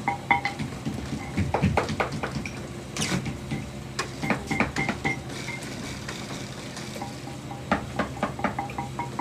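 Irregular clicks, knocks and clatter of hand tools and materials being handled, over a steady low hum. Background music with a repeating chime-like tone comes back near the end.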